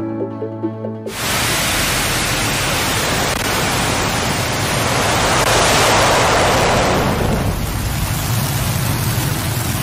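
Blue Origin New Shepard rocket lifting off: its engine makes a loud, steady rushing noise that starts suddenly about a second in and swells a little midway. Background music plays briefly before it.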